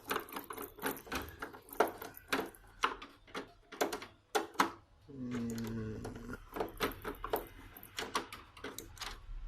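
A screwdriver working at the screws and plastic casing of an air conditioner's front panel, making rapid, irregular clicks and taps. A brief pitched hum of about a second comes in about five seconds in.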